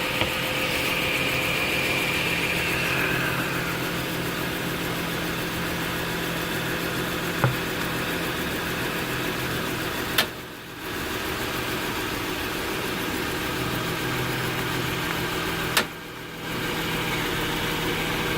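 2006 Acura TL's 3.2-litre V6 idling in park while the steering wheel is turned slowly, with three sharp clicks a few seconds apart from the driver-side steering rack: the sign of an internally binding rack. A high whine sounds over the idle for the first few seconds.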